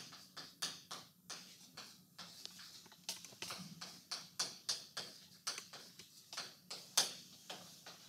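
Chalk tapping and scraping on a chalkboard while a formula is written: a quick, uneven run of sharp strokes, roughly three a second, the loudest about seven seconds in, stopping just before the end.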